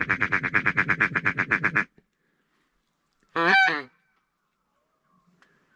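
Waterfowl calling: a fast, even run of honking notes, about nine a second, stops about two seconds in, followed by one drawn-out honk about three and a half seconds in.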